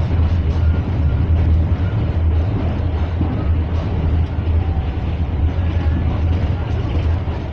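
Steady rumble of a moving train heard from inside the carriage: wheels running on the rails with a strong low hum under a dense rushing noise.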